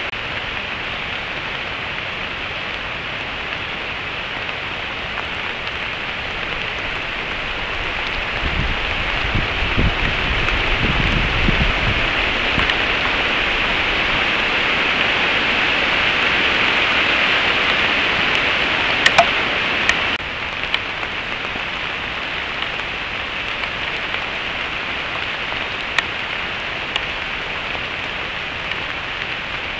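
Steady rain falling on the woods, a continuous hiss. The rain swells about a quarter of the way in and drops back abruptly after two-thirds. A low rumble lasts a few seconds near the start of the swell, and a few sharp ticks come later.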